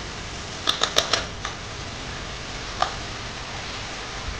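A utensil clicking against a bowl and cooking pot as marinated chicken is tipped in: a quick run of four clicks about a second in and one more near three seconds, over a steady hiss.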